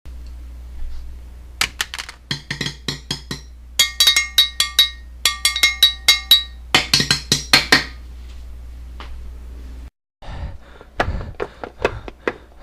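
Quick irregular clusters of sharp taps and clicks, some ringing briefly with a pitched tone, over a low steady hum that cuts out near the end.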